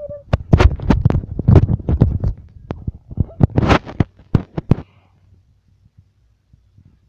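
A rapid run of loud knocks, bumps and rubbing from hands handling and knocking against the recording phone, lasting about four and a half seconds and then stopping, with only faint ticks after.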